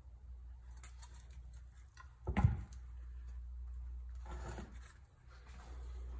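Water pump parts being handled at the bench: one dull, heavy thud about two and a half seconds in as something is set down, and softer handling noise a couple of seconds later, over a steady low hum.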